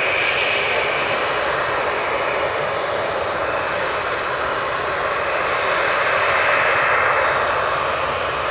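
Boeing 737-800's two CFM56 turbofan engines running at low ground power: a steady jet whine over a rush of air, swelling slightly about six seconds in.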